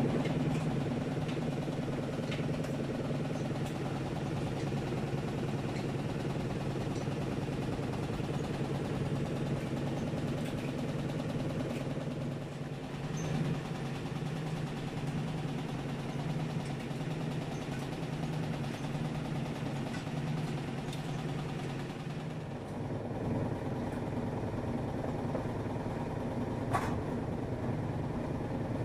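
Steady machine hum of commercial washing machines and tumble dryers running in a laundry room, with a few light clicks and knocks. The low hum changes about two-thirds of the way through.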